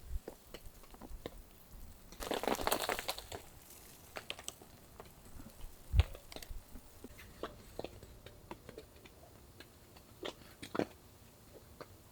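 Irregular crunches and small clicks, with a louder stretch of dense crunching about two seconds in and a single sharp knock about six seconds in.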